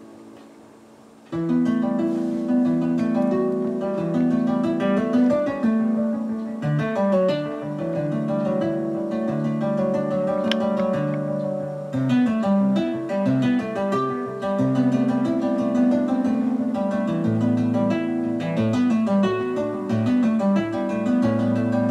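Instrumental music played back from a metal-position cassette tape on a Technics RS-5 stereo cassette deck, recorded with Dolby noise reduction. The music comes in about a second in, after a brief quiet moment.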